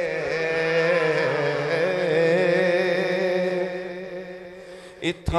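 A man's voice chanting a Punjabi rabai through a microphone, holding long wavering notes that fade away about four seconds in. Two short knocks come just before the end.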